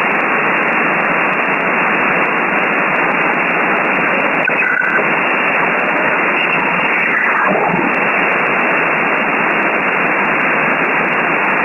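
Shortwave receiver static on upper sideband from an RTL-SDR v3 being tuned across the 20-metre amateur band: a steady hiss with no station on frequency. A brief whistle comes about five seconds in, and the pitch of a passing signal falls quickly about seven seconds in.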